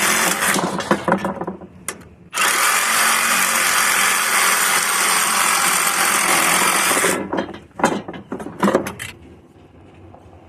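A handheld power tool cutting through the copper refrigerant lines at an AC condenser's compressor: it runs briefly, then again for about five seconds, with metal rattling and a few sharp clanks between and after the cuts.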